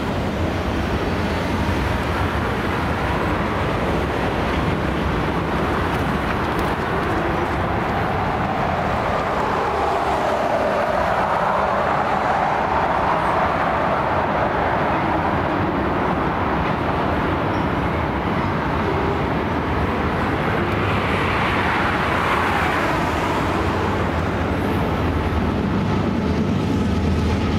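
Freight train of autorack cars rolling steadily across a railroad overpass: continuous noise of wheels on rail.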